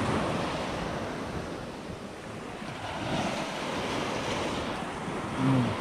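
Sea surf breaking and washing up a beach, swelling louder about three seconds in, with wind buffeting the microphone.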